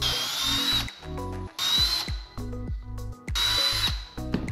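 Cordless drill running in three short bursts of high whine as it bores bolt holes through a black mat ring into a wooden block beneath.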